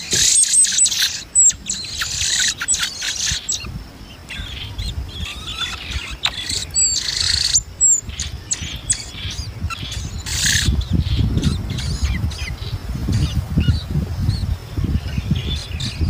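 Songbird nestlings begging in the nest: a rapid jumble of high, thin chirps and squeaks, loudest in the first half. In the second half a low rumbling noise runs under fainter chirps.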